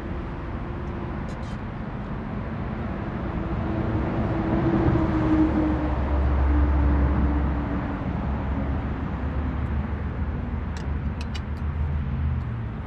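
A motor vehicle passing by, its rumble swelling to a peak midway and then fading as its pitch slowly falls. A few light clicks near the end.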